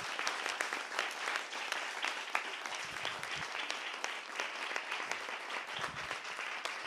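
A small group of people clapping their hands in steady applause.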